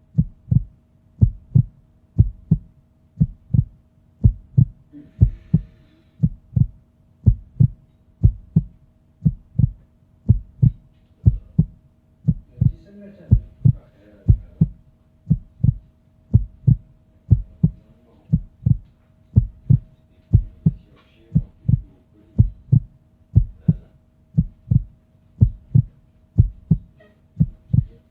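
Heartbeat sound: a steady double thump, lub-dub, repeating evenly a little over once a second, over a faint steady hum.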